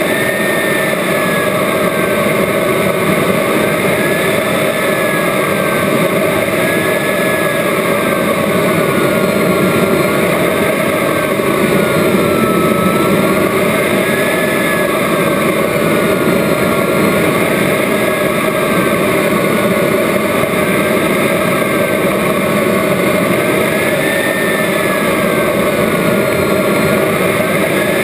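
Radio-controlled model Rafale jet's power unit running steadily, heard through a camera mounted on the model, with a thin whine that drifts slowly up and down every few seconds.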